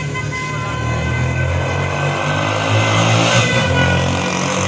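A motor vehicle's engine running close by, loudest about three seconds in.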